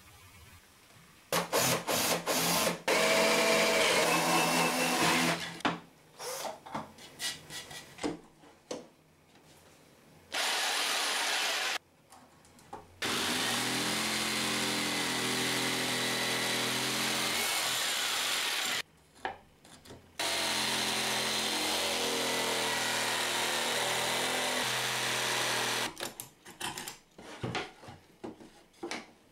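Corded jigsaw cutting a circular hole in thin plywood. It runs in three steady stretches with short stops between them, after a few seconds of loud power-tool noise near the start. Knocks and clatter follow near the end.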